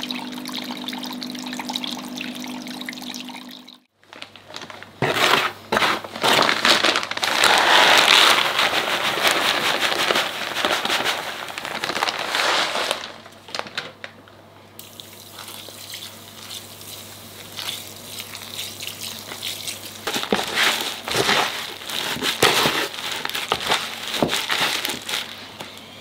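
Water trickling down a miniature rock waterfall with a steady hum, cut off sharply about four seconds in. Then granular soil substrate is handled and poured, a dense gritty rustle that is loudest at first and thins to scattered crackles and scrapes.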